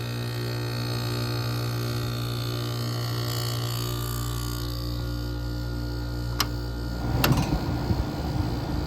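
1986 Gibson 8,000 BTU window air conditioner running, with a steady hum from its Matsushita rotary compressor and fan. Two sharp clicks come about six and seven seconds in, and a rougher low rumble follows.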